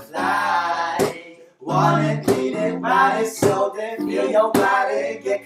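Live song with strummed acoustic guitar, sharp strokes marking a beat about once a second, under a sung vocal line.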